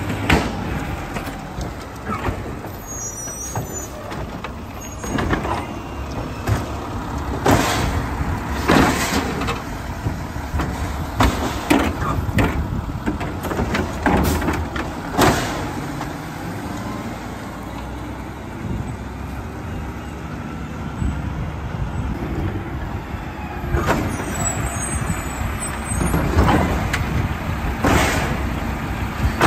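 Diesel engine of a split-body automated side-loader garbage truck running steadily, with repeated sharp hisses and clanks from its air brakes and grabber arm as it works curbside trash carts.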